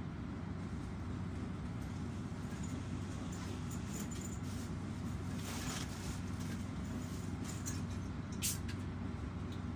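Steady low hum inside a standing passenger train, with a freight train of open wagons rolling slowly past on a far track. Scattered light clicks and knocks come through, with one sharper click near the end.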